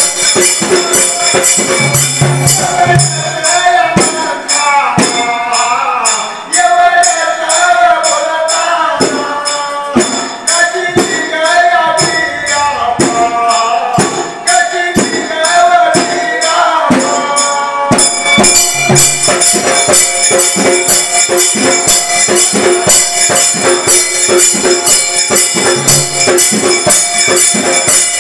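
Dhangari ovi folk singing: male voices chanting a melody over a double-headed dhol drum and small hand cymbals that keep a fast, steady jingling beat. The voices drop out about 18 s in, leaving the drum and cymbals playing on.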